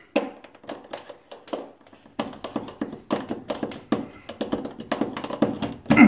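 A vacuum cleaner's plastic mains plug tapping and knocking against a wall socket and skirting board as it is fumbled into place, with hand-handling noise throughout. It ends in a louder knock as the plug goes into the socket.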